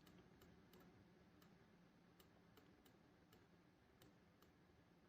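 Near silence: faint room tone with a few very faint, irregular clicks.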